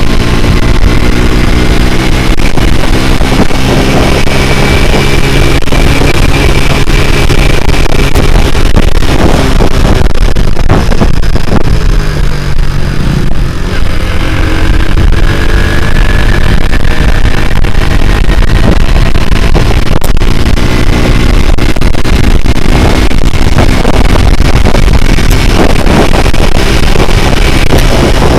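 Honda Grand single-cylinder four-stroke engine in a Honda C70 frame, running hard under way. About halfway through, the revs sag briefly, then build again. Wind buffets the microphone throughout.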